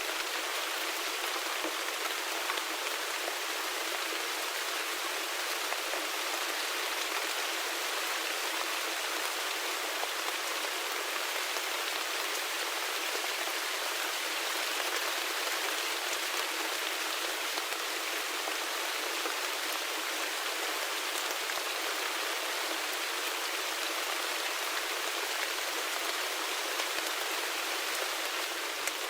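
Steady rain falling, a dense even hiss studded with countless small drop ticks, with no deep rumble beneath it.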